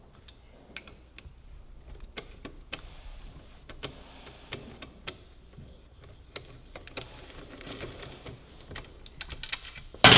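A 12 mm socket on a T-handle unscrewing a long steel bolt: scattered light clicks and ticks, coming thicker toward the end, then a loud clatter at the very end.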